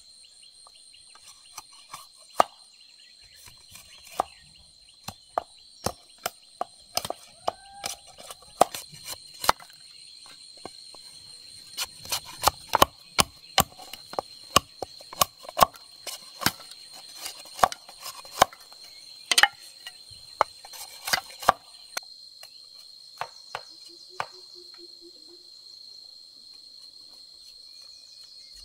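Machete blade striking and splitting bamboo: sharp, irregular knocks, thickest in the middle, stopping a few seconds before the end. Insects drone steadily and high-pitched behind.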